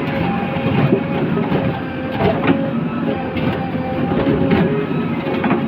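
JCB 3DX backhoe loader's diesel engine running steadily, with irregular metallic clanks and rattles and a faint steady whine.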